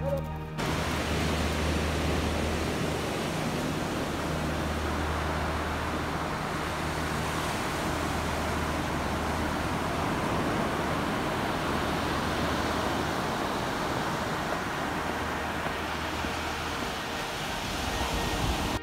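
Steady rush of ocean surf breaking on a beach, with a faint low drone underneath.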